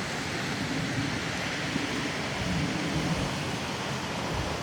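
Strong wind blowing over the microphone: a steady rushing noise with uneven low rumbling buffets.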